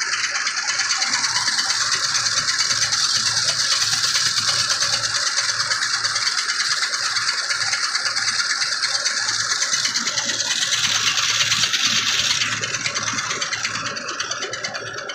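Tractor-driven rice mill running, with a steady, dense rattling hiss of the machinery and milled rice grains spilling from its outlet; it eases off near the end.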